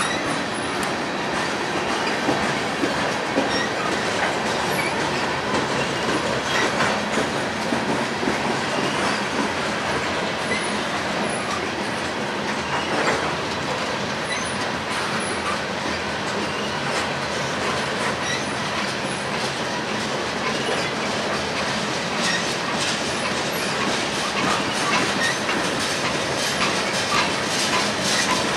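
Freight train of tank cars and covered hoppers rolling past close by: a steady, continuous noise of steel wheels running on the rails.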